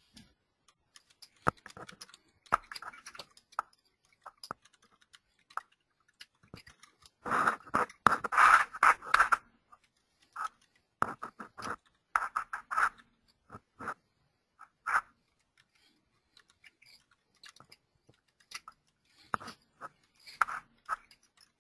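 Irregular scratching and crackling noises close to the microphone, coming in short clusters, the loudest about seven to nine seconds in.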